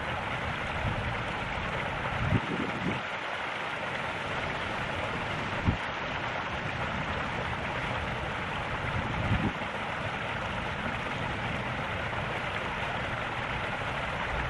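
Steady rushing of water from the swimming pool's bubbling return jet, with three brief low thumps a few seconds apart.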